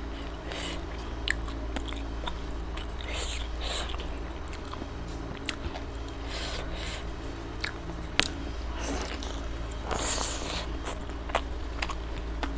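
Close-miked mouth sounds of a person eating a gravy-soaked chicken leg with rice: wet smacking, biting and chewing, with scattered sharp lip clicks. A steady low hum runs underneath.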